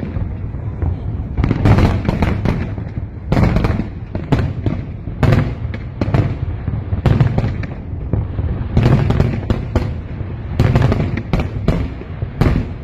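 Aerial fireworks display: bursts and crackling shells going off in quick clusters every second or two over a constant low rumble.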